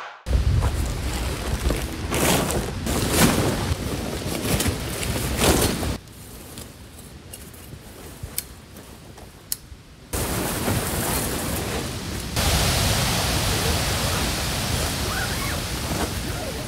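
Wind buffeting the microphone, with rustling and sharp clicks from a tent and its poles being pitched. The sound comes in several abruptly cut sections, with a quieter stretch in the middle.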